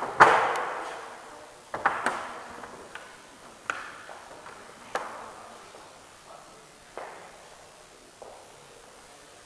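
A series of sharp knocks or taps at uneven intervals, each ringing out for about a second. The first, just after the start, is the loudest, and later ones grow fainter.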